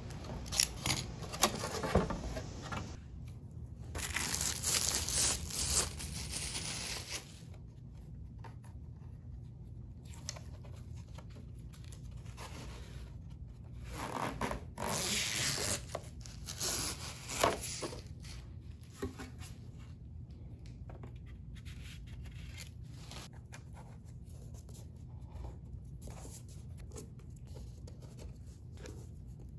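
A utility knife scoring white backing board along a steel ruler, with a few sharp clicks near the start. A little after halfway, clear protective film is peeled off the frame's glazing with a crinkling, tearing rip; quieter handling and small clicks of the frame's hardware follow.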